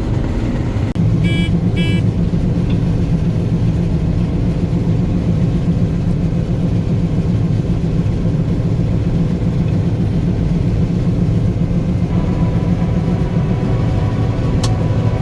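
Combine harvester running with a steady, deep engine drone. Two short beeps sound about a second in.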